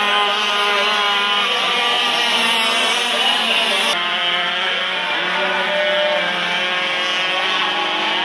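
Several radio-controlled racing powerboats' small engines running flat out together, a steady drone of overlapping high engine notes that waver slightly as the boats run the course.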